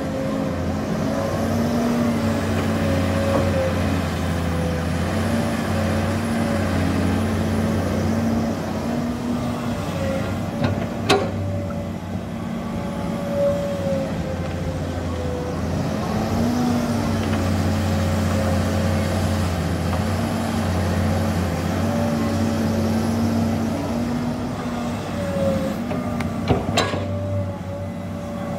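Hydraulic excavator's diesel engine running under working load, its pitch wavering slightly as it works. Two sharp knocks cut through, about eleven seconds in and again near the end.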